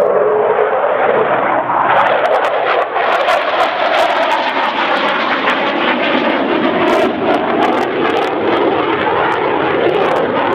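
NH90 military helicopter running loud and steady, a dense rush of twin-turbine and rotor noise. Irregular crackles join in from about two seconds in.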